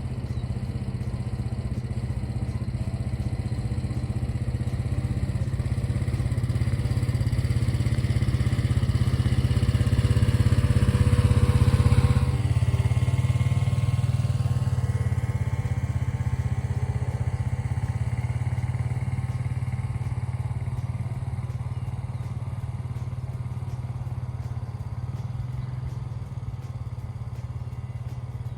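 A farm vehicle's engine runs steadily as it comes closer, passes near about twelve seconds in, then moves away. Its pitch drops as it goes by.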